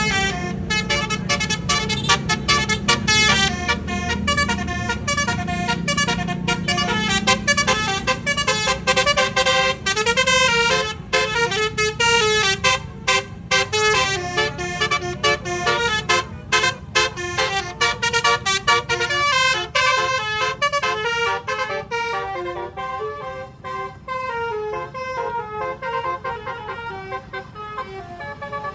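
Bus basuri telolet horn playing a fast melody of short notes that change pitch several times a second, with a low hum underneath during the first several seconds.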